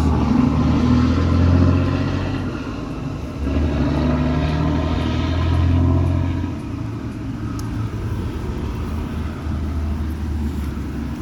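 Motor vehicle engines going by, with a low rumble that swells twice in the first six seconds and then settles into a steadier lower drone.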